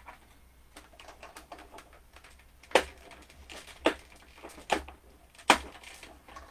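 Light clicks and taps with four sharper knocks, from handling a metal cutting die and its plates during die-cutting of cardstock.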